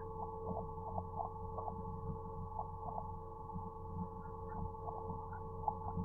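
Steady electrical hum with several held tones and a low rumble, broken by soft irregular blips two or three times a second.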